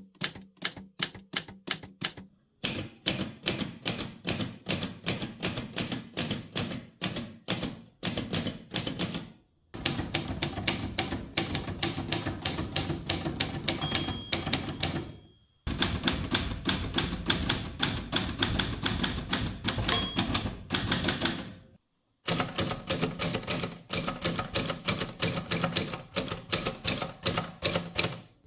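Manual typewriters being typed on: quick, rapid clacking of the typebars striking the platen, several different machines in turn, each run broken off by a short gap.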